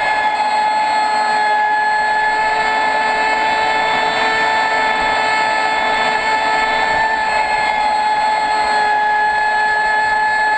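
Traxxas Spartan RC speedboat's brushless electric motor running at high speed with a steady high-pitched whine, over the rush of water along the hull.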